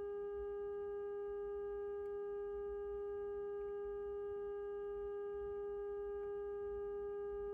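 Northern Electric Model 5000 tube radio's loudspeaker giving a steady test tone with faint overtones: the signal generator's modulation coming through the set while its IF transformers are aligned to peak the output.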